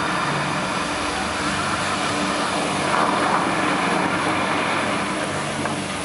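Steady rushing hiss of the show's high-pressure water jets spraying up the mist projection screen, with a faint low hum beneath it.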